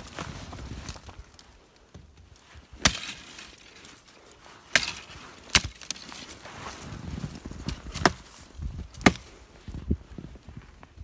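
Sharp cracks of wood breaking, five or so at irregular intervals, as sticks are snapped, with a soft crunching of steps in snow between them.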